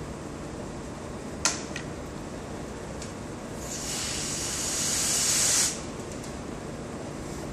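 A sharp click, then a hiss that builds over about two seconds and stops abruptly.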